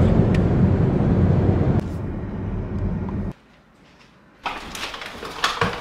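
Steady low rumble of road and engine noise inside a moving car's cabin, dropping in level about two seconds in and cutting off a little later. After about a second of quiet come short knocks and rustles of things being handled in a room.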